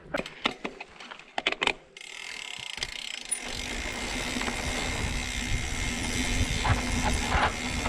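Mountain bike in motion: a few sharp clicks and rattles, then from about two seconds in a steady rush of tyre and wind noise with the ticking of the freewheel hub, growing slightly louder.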